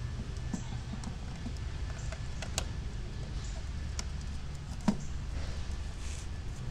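Scattered plastic clicks and taps as the floating cable's plug is fitted into the MRT 5000 robotic pool cleaner's power supply box, the loudest click about five seconds in, over a steady low rumble.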